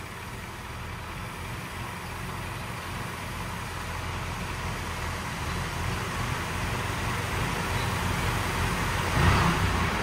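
John Deere 1640 tractor's three-cylinder diesel engine running steadily while its hydraulics tip a trailer, with the hiss of dusty grain sliding off the back onto a heap. The sound grows gradually louder and swells near the end.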